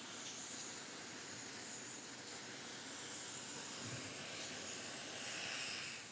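Handheld propane torch hissing steadily as its flame is played over wood pellets in the pizza oven's pellet tray to light them.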